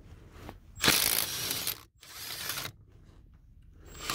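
Ratchet wrench on a long socket extension clicking rapidly as it backs out a brake caliper bolt, in two bursts of about a second each.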